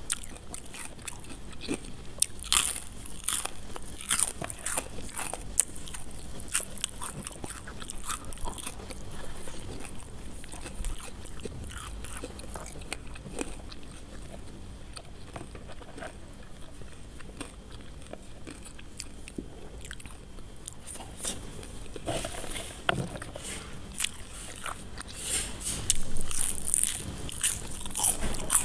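A person biting and chewing crispy fried potato sticks (home-made fries) with fingers picking them off the plate: crackling crunches. The crunching is densest in the first few seconds and again near the end, with quieter chewing in between.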